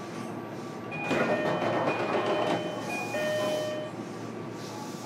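JR Kyushu 305 series electric train running, heard from inside its motor car. About a second in, a louder stretch of about three seconds rises over the running noise, with several steady high ringing tones that cut in and out before it drops back.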